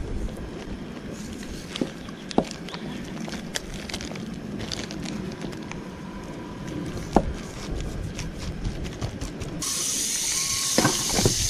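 Plastic food wrapping crinkling, with scattered sharp clicks, as a raw steak is unwrapped and handled. Near the end, butter starts sizzling in a hot frying pan.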